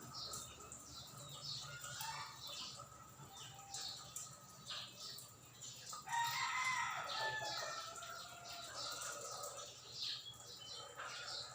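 Birds calling: a string of short calls, with a louder, longer call whose pitch falls, about six seconds in.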